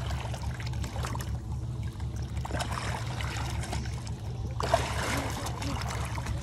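Water splashing and sloshing at a whale shark's open mouth against the side of a small boat, with a louder splash about five seconds in, over a steady low rumble.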